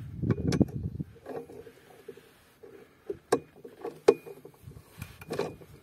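Socket wrench on a long extension bar turning the battery clamping-plate nut: rapid clicking of the wrench for about the first second, then a few separate sharp metallic clicks and knocks.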